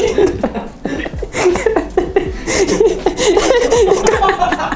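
A man laughing hard and helplessly in repeated short pulses, with a brief let-up about a second in, while his shoulder is being worked on.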